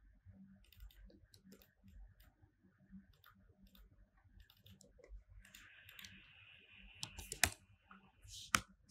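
Faint, scattered clicks of a computer mouse, a few sharper ones near the end, with a soft hiss for a few seconds in the second half.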